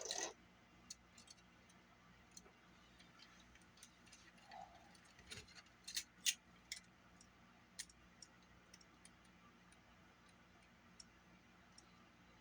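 Sparse, irregular small clicks and taps from tools and small parts being handled while a Sony Walkman cassette mechanism is worked on, with a couple of sharper clicks about halfway through.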